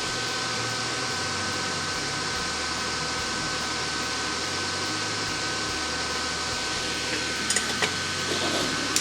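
Electric fan running steadily with a hiss and a faint whine, a few light clicks near the end; at the very end it is switched off and its whine starts to fall as it spins down.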